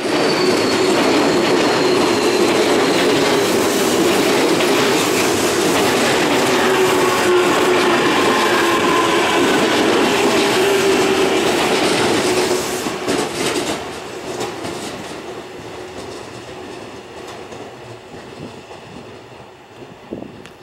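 Tokyu 5050 series electric train running past on a tight curve: a dense rumble and clatter of wheels on rail, with held wheel-squeal tones. The sound stays loud for about twelve seconds, then fades steadily as the train draws away.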